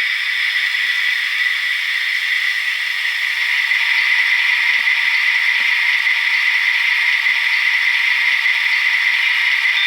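Sound decoder of an HO-scale REE BB67000 model locomotive playing its diesel engine running sound through the model's small onboard speaker. It is a steady, thin sound with no bass, growing a little louder about four seconds in.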